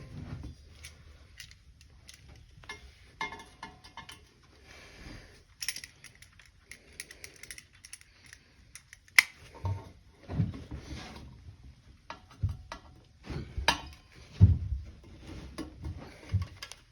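Scattered metallic clicks, clinks and scrapes of exhaust springs being stretched and hooked onto a dirt bike's exhaust pipe. Several duller knocks come in the second half.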